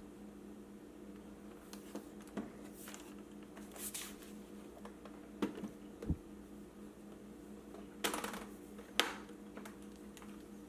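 Scattered light clicks and knocks from handling a laptop and its parts, about nine of them spread unevenly, the loudest two near the end, over a steady low hum.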